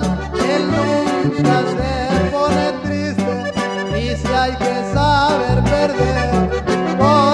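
Instrumental break of a norteño corrido: an accordion plays the melody over alternating bass notes on a steady beat.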